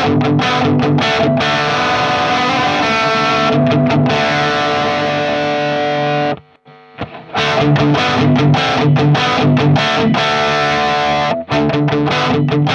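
Sterling by Music Man Valentine electric guitar played through an amp with distortion, picking a rhythmic riff of notes and chords. The playing breaks off for under a second about six and a half seconds in, then starts again.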